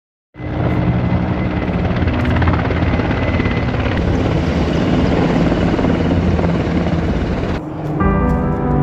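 Helicopter passing overhead, a loud steady rotor and engine noise. It cuts off suddenly near the end, and music begins.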